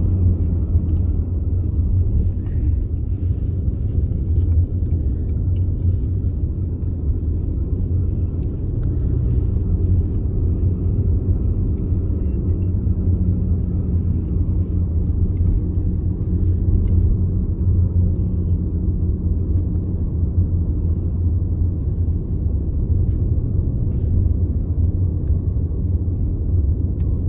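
Steady low rumble of a car driving on the road, heard from inside the cabin: engine and tyre noise with no sudden events.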